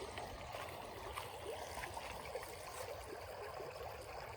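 Creek water running, a steady faint rush with small scattered trickles.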